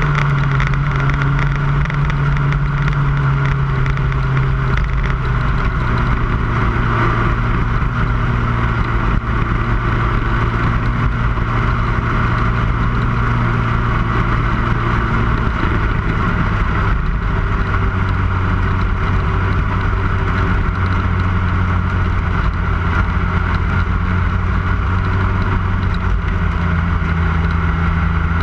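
Lightning sprint car engines running steadily at speed, the engine note dropping slightly a little over halfway through.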